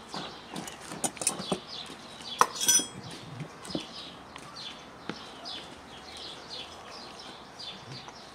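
Stuffed bell peppers being pushed by hand into a large glass jar: a cluster of knocks and clinks against the glass in the first three seconds, the loudest about two and a half seconds in, then only light handling. Birds chirp in the background throughout with short, repeated falling notes.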